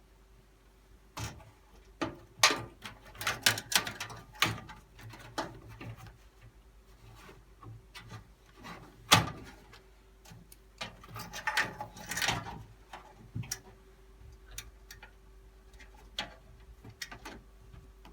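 Irregular clicks, knocks and short scrapes from a motherboard and its screws being handled and fitted onto the risers of a metal PC case, over a faint steady hum.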